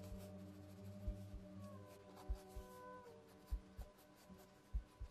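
Mechanical pencil lead scratching in short strokes on sketchbook paper, faint, over soft background music with held notes and a low beat of paired thumps about every second.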